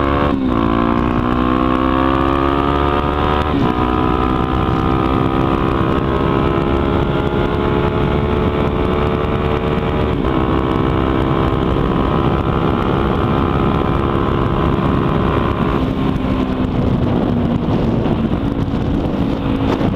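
Honda Tornado 250's single-cylinder four-stroke engine, exhaust de-baffled, pulling through the gears under acceleration. The pitch rises in each gear and drops at about four gear changes, then holds steadier near the end.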